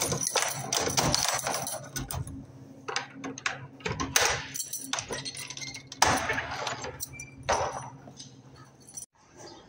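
Light clinks and a few separate knocks of objects being handled, over a steady low hum that fades out near the end.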